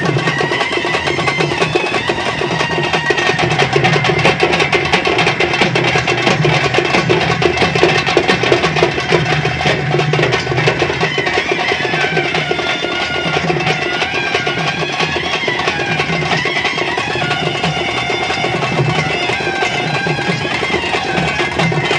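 Music with fast, dense drumming and a wavering high melody line over it.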